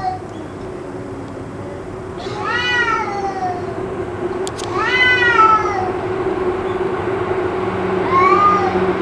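Cat yowling: three long, drawn-out wavering cries about two, five and eight seconds in, over a steady low hum. The uploader wonders whether this is a cat fight.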